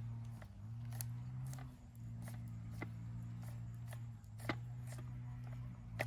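A steady low hum that wavers and dips a few times, with scattered sharp clicks and ticks; the loudest click comes about four and a half seconds in.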